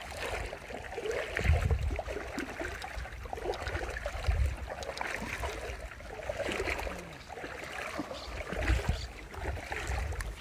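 Shallow lagoon water sloshing and swishing irregularly around a person wading through it, with a few low rumbles on the microphone.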